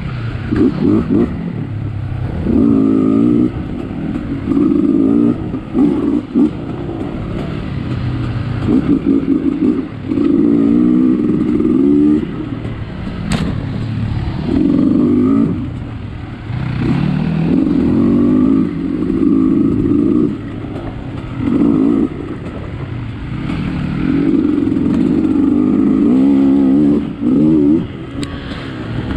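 Dirt bike engine being ridden on and off the throttle, revving up in short bursts every second or two and dropping back between them. A single sharp click sounds about thirteen seconds in.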